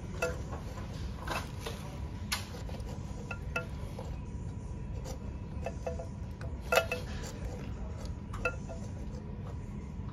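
Scattered light clicks and ticks, some with a brief ringing tone, as a plastic sensor cover and silicone pressure tubing are handled and the tubing is fed through a hole in the wall. The sharpest click comes about two-thirds of the way through, over a steady low rumble.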